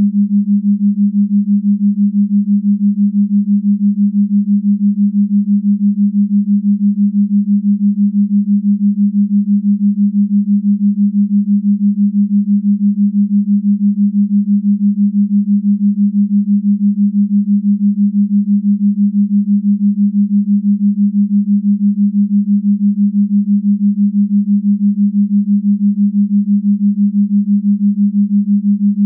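A steady, low electronic drone: one pure tone that holds the same pitch throughout and pulses quickly and evenly in loudness.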